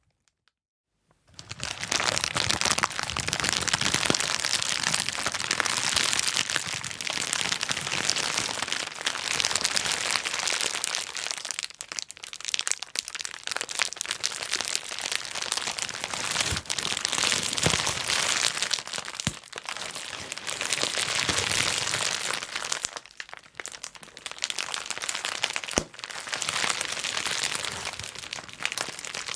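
Bubble wrap being popped and crushed: a dense, rapid stream of small pops mixed with plastic crinkling, starting about a second in and easing off briefly a few times.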